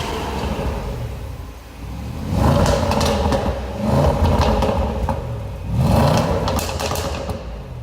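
Range Rover Sport SVR's 5.0-litre supercharged V8 revved three times, each rev rising and falling back. Exhaust crackles and pops follow as each rev drops.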